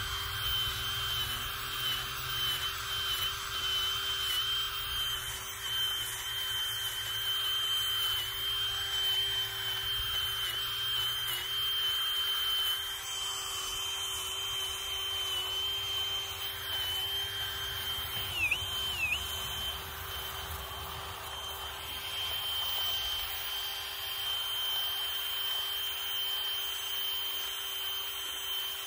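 Stihl MS880 two-stroke chainsaw running at high revs in a steady even whine, its pitch dipping twice briefly about two-thirds of the way through as the engine bogs slightly.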